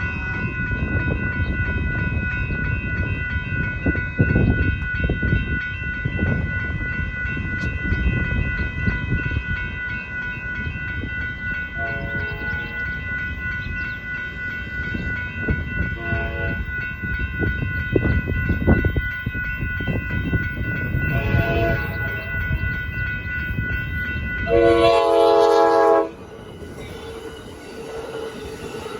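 Electronic railroad crossing bells ring continuously while a passenger train rumbles past on the track. Short train horn blasts sound a few times. A louder, longer horn blast comes near the end and cuts off suddenly, after which only a quieter rumble is left.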